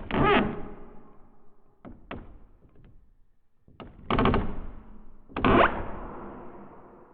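Wooden door creaking on its hinges in short, strained groans. There is one at the start, two quick clicks around two seconds in, and two more creaks about four and five and a half seconds in. Each begins with a knock-like click and fades out with a lingering echo.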